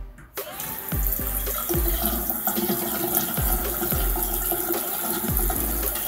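Water running from a bathroom sink faucet into the basin, starting about half a second in, over background music with a steady beat.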